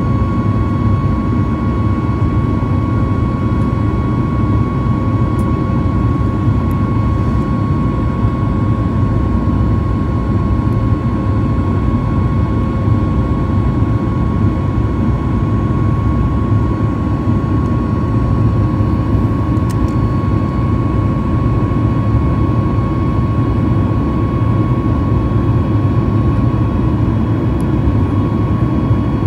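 Steady cabin noise of a Boeing 737 MAX in its climb: the low rumble of its CFM LEAP-1B engines and rushing air, with a steady whine running above it.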